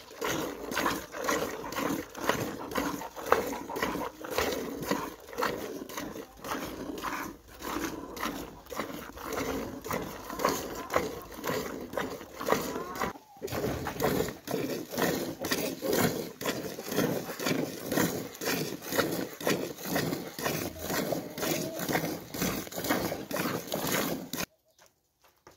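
Cow being milked by hand: jets of milk squirting into a plastic bucket partly full of frothy milk, in a steady rhythm of about two to three squirts a second. There is a brief pause about halfway through, and the squirting stops shortly before the end.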